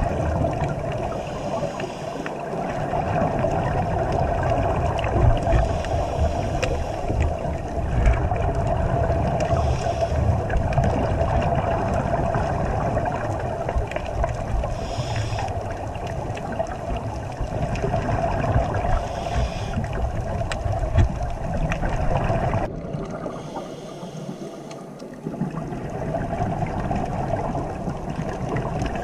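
Underwater ambience picked up through a dive camera's housing: a steady muffled rumble and hiss, with a burst of bubbling hiss every few seconds that fits scuba divers' regulator exhalations. The low rumble drops away abruptly for a few seconds near the end.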